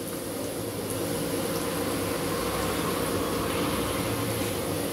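Pakoda batter deep-frying in hot oil in a wok: a steady sizzle as more pieces are dropped in, growing a little louder about a second in, over a faint steady hum.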